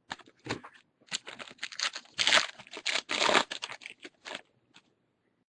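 Wrapper of a foil trading-card pack crinkling and tearing as the pack is ripped open by hand: a run of irregular crackles and snaps that stops near the end.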